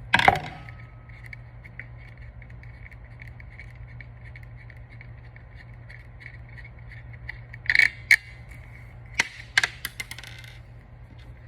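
Small metal screw being unscrewed from a caliper brake handle by hand with a screwdriver: a loud clatter at the start, faint repeated ticks and scraping while it turns, then a few sharp metal clicks and clinks about eight to ten seconds in as the screw and nut come free. A steady low hum runs underneath.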